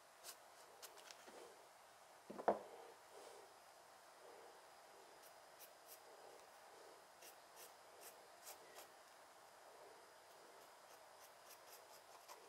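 Faint scratching of a drawing tool sketching a design on a flat stone, with scattered light ticks and one louder knock about two and a half seconds in.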